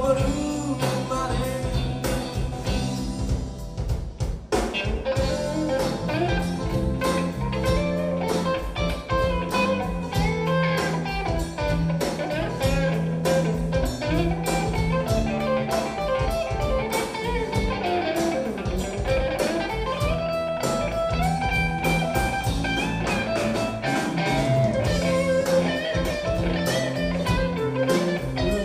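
Live rock band playing electric guitars over a drum kit through amplifiers, heard from within the standing crowd, with a short break in the playing about four seconds in.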